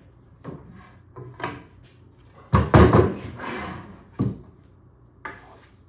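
Plywood pieces being handled and set down: a few separate wooden knocks, the loudest a clattering cluster about halfway through with a brief scrape after it.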